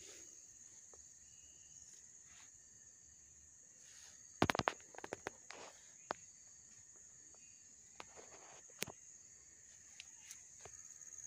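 Steady high-pitched drone of insects in the field, with a cluster of brief rustles and sharp clicks near the middle and a few single clicks later from footsteps and plant stems and leaves brushing past.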